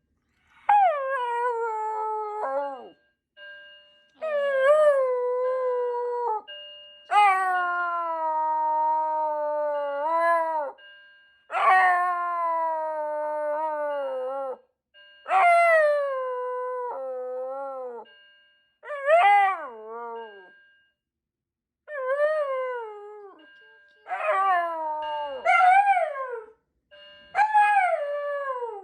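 Shiba Inu howling in a series of about nine long, drawn-out calls, each starting high, sliding down in pitch and turning up at the end. It is howling in response to a fire alarm, whose steady high tone sounds on and off behind the howls.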